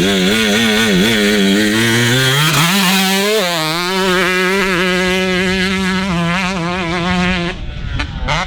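Husqvarna two-stroke dirt bike engine being ridden on the throttle. Its pitch wavers and climbs over the first few seconds, holds fairly steady, then falls away near the end as the throttle is let off.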